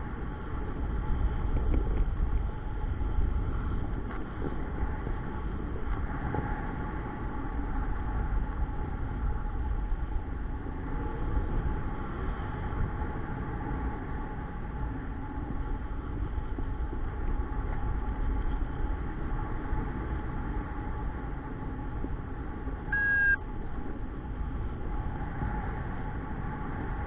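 Wind rushing and buffeting on the camera's microphone during a paraglider flight, an uneven rumble with some steady faint hum in it. A brief high tone sounds once about 23 seconds in.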